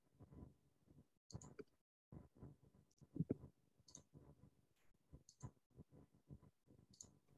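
Faint, irregular clicking and tapping picked up through a video-call microphone, with a sharper high tick every second or two.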